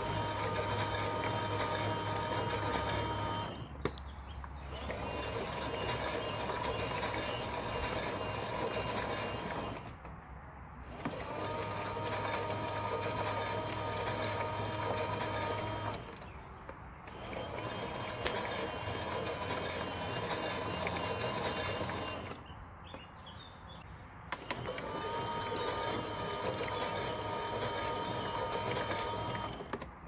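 Toy washing machine's small electric motor whining as it turns its drum with water inside, running in spells of about five to six seconds with four short pauses between them, the stop-and-start of a wash cycle.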